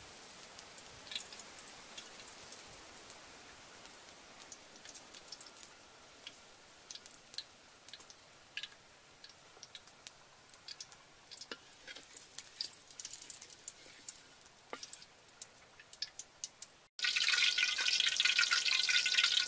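Soybean oil heating in a wok over a wood fire, giving scattered crackles and pops that come more often as it gets hotter. About 17 seconds in, it switches abruptly to a loud, dense sizzle as food goes into the hot oil.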